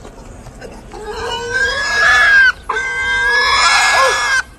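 A hog squealing in two long, steady, high-pitched squeals, with a short break about two and a half seconds in, while a donkey nips at it.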